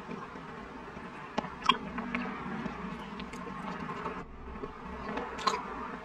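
Close-miked eating of soft chocolate off a metal spoon: wet mouth clicks and smacks, with a sharp click about a second and a half in and another about five and a half seconds in. A steady buzzing hum runs underneath.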